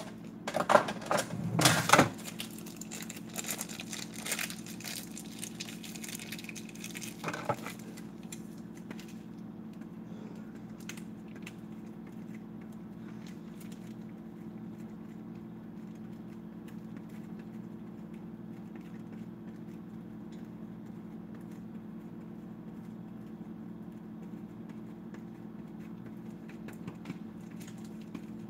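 Handling knocks and plastic crinkling in the first couple of seconds. After that, faint scraping of a block of Asiago cheese on a hand grater over a steady low hum.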